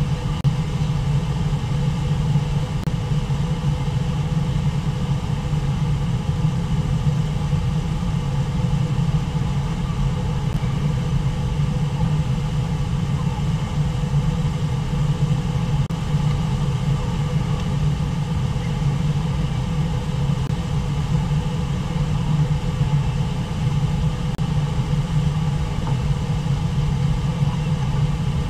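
Brooks Falls and the rapids below it rushing steadily, a constant deep wash of falling water with no breaks.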